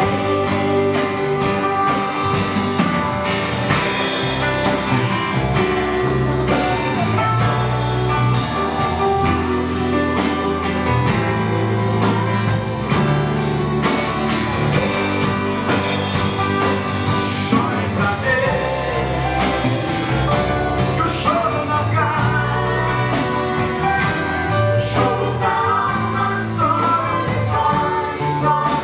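Gospel song being rehearsed: singing over a band with guitar and bass, played continuously.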